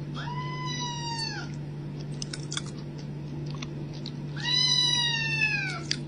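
Kitten meowing twice: two long, high calls that drop in pitch at the end, the second louder. A steady low hum runs underneath.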